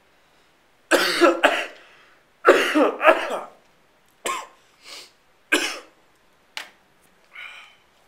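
A person coughing repeatedly in short harsh bursts, two loud fits of two or three coughs each, then weaker single coughs tapering off toward the end.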